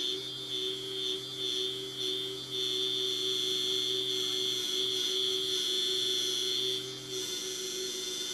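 Electric deburring spindle with an abrasive flap wheel running at speed: a steady high motor whine. It wavers in loudness for the first couple of seconds, holds steady and loudest until about seven seconds in, then drops slightly.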